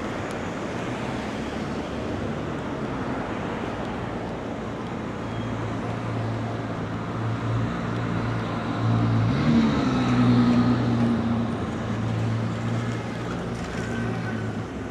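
City street traffic noise, with a motor vehicle's engine humming from about five seconds in. The engine rises briefly in pitch and is loudest about ten seconds in as it passes.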